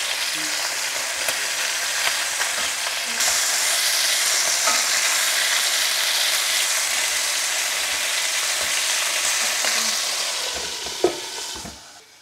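Chicken pieces sizzling in hot oil in a nonstick pot, with light clicks of tongs turning them. The sizzle gets louder about three seconds in and dies away near the end, with one sharp knock just before it fades.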